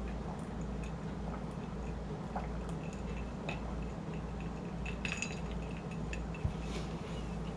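Eating sounds close to the microphone: faint chewing and scattered light clicks, with a brief cluster of sharper clicks about five seconds in and a soft thump near the end, over a steady low hum.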